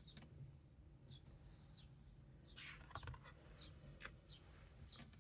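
Near silence: room tone with a few faint clicks and rustles of oracle cards being handled, and faint short high chirps recurring every second or so.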